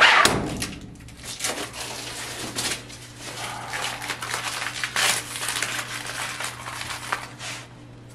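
Plastic film and paper stickers being peeled off a new washing machine and crumpled by hand: irregular crinkling and rustling, loudest right at the start. A faint steady low hum runs underneath.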